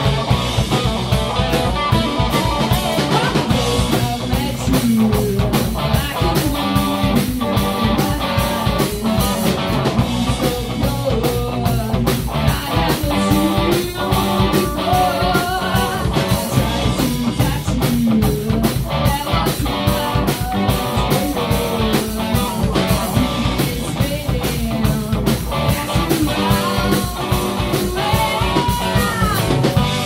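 Hard rock band playing in rehearsal: electric guitars and a drum kit, with melodic lines bending in pitch over a steady beat.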